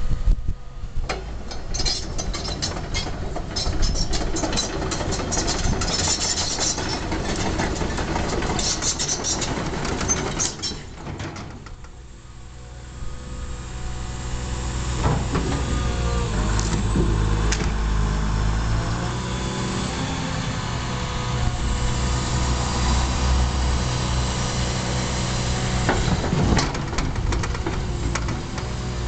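Diesel engine of a Caterpillar 324 excavator running, with metallic clatter and knocks through the first ten seconds or so. After a brief quieter moment, a steady low engine note builds and holds.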